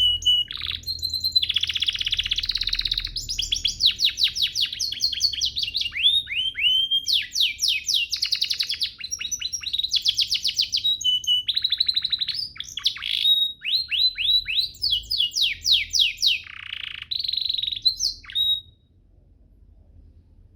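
Domestic canary singing a long, fast song of rapid trills and runs of repeated down-sweeping notes, stopping abruptly near the end.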